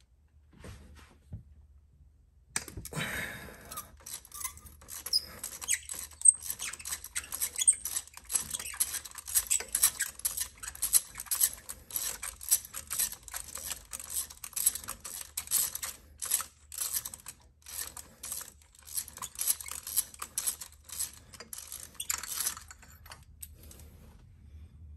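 Socket ratchet clicking in rapid repeated strokes as an old spark plug is unscrewed from the engine. It starts about two and a half seconds in and stops a couple of seconds before the end.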